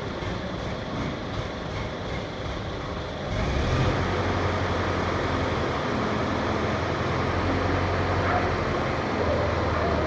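A heavy engine running steadily, its note growing louder and deeper about three seconds in, with a low hum from then on.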